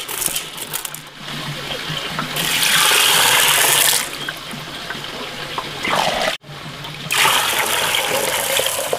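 Black beans rattling as they drop into an aluminium pot, then water poured into the pot over the beans in two spells: a loud pour about two seconds in and another from about seven seconds.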